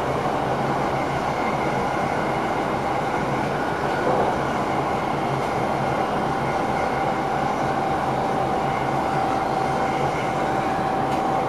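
Train running along the track, heard from inside the driver's cab: a steady rumble of wheels on rail with a steady high tone over it and a small knock about four seconds in.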